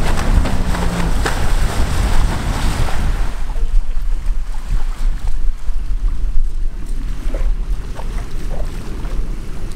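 Wind rumbling heavily on the microphone over water rushing and splashing in the shallows as a small outboard-powered inflatable dinghy runs up onto a sandy beach. The rushing dies down after about three seconds, leaving the wind rumble with a few small splashes.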